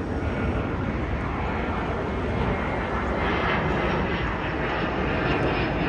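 Jet aircraft engine noise: a steady rushing drone that grows a little louder, gaining more hiss about halfway through.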